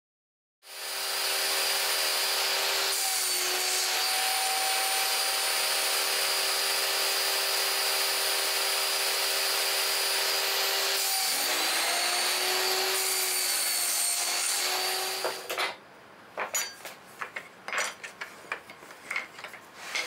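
Table saw running with a crosscut sled, its steady motor note sagging in pitch and recovering twice as the blade cuts through a small birch-plywood part. The saw sound cuts off suddenly about three-quarters of the way through, followed by light clicks and knocks of wooden parts and a metal square being handled on the sled.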